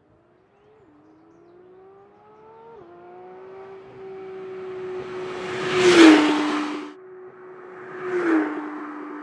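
Porsche 992 911 GT3 Touring's naturally aspirated 4.0-litre flat-six accelerating, its pitch climbing and dropping twice at upshifts, then holding steady while the sound grows louder. Two loud rushes of noise come about six and eight seconds in.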